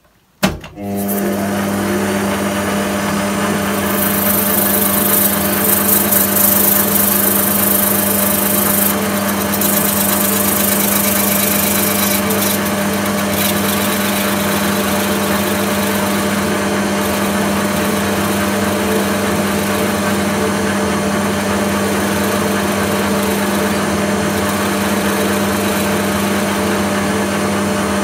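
Bernardo conventional lathe starting up about half a second in and then running steadily, its motor and drive humming. From about four to nine seconds in, a high hiss rises over the hum as the tool turns a shoulder on the acrylic tube.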